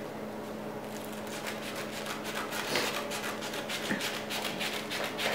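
Small scissors snipping through folded layers of tissue paper in a run of quick short cuts, the paper rustling between snips.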